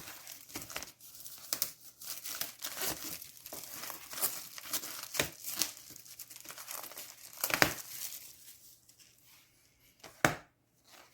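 Plastic shrink wrap being torn and peeled off a CD digipak, with irregular crinkling and tearing that dies away near the end, followed by a sharp click.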